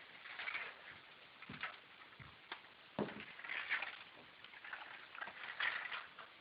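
Hands working on a disassembled inkjet printer: irregular clicks, knocks and short scraping rubs of its parts, with a few dull thumps.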